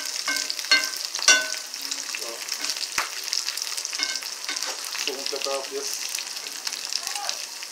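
Chicken pieces and seasoning sizzling in hot oil in a frying pan, with a steady hiss, while a metal slotted spoon stirs them, scraping and clinking against the pan. The sharp, ringing clinks come several times in the first second and a half, then again about three and four seconds in.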